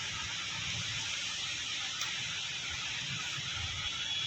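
Aerosol spray can hissing steadily as penetrating spray is applied to a brake caliper to loosen rust.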